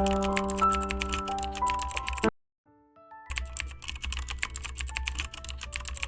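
Soft electric-piano music with rapid computer-keyboard typing clicks over it. Both cut out for about a second in the middle, then the typing goes on over quieter music.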